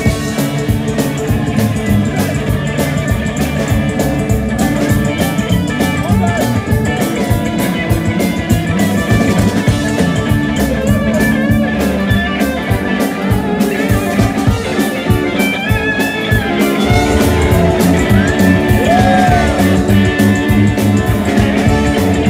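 Live rockabilly band playing loudly: electric guitars, an upright bass and drums driving a steady beat, with several voices singing along at the microphones.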